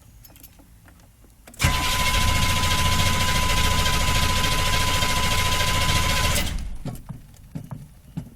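6.2-litre diesel engine running loudly with a steady whine, starting abruptly about a second and a half in, then dying away after about five seconds, followed by a few knocks.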